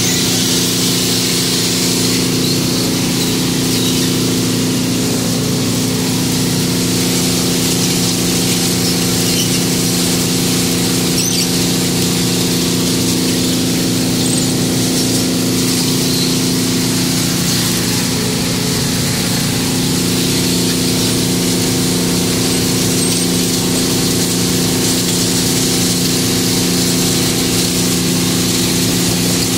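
Hydraulic clam dredge machinery running steadily: an even engine-and-pump drone under a constant high hiss, with the wire-mesh conveyor carrying the catch.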